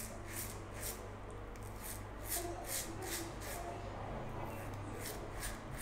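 Double-edge safety razor (Green Cult, with a Wizamet Super Iridium blade) scraping through lather and stubble on the neck in short, quick strokes, about two to three a second, in little runs with brief pauses between them.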